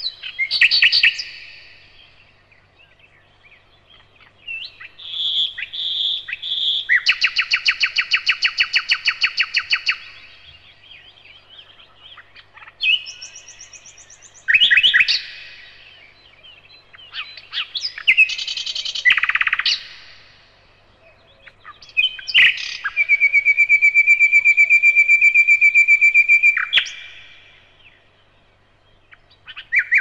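Common nightingale singing in separate phrases a few seconds apart, mixing short whistled notes with fast runs of repeated notes. The longest phrase, a steady rapid trill, lasts about four seconds.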